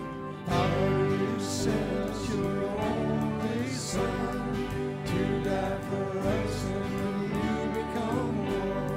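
Music: a worship song, a singer's voice over sustained instrumental backing, the music swelling about half a second in.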